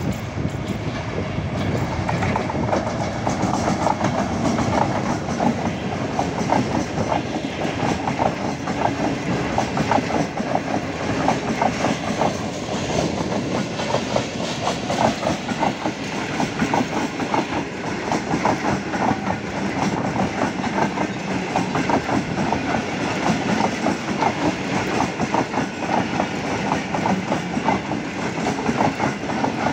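A Pakistan Railways passenger train hauled by a GEU-40 diesel-electric locomotive passing close by at speed. A long run of coaches goes by, their wheels clattering over the rail joints in a steady clickety-clack.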